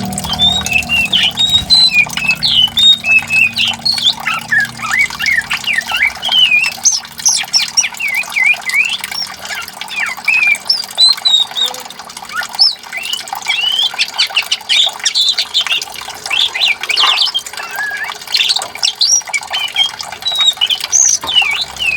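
Songbird singing in a long run of rapid, varied chirps and sweeping whistles.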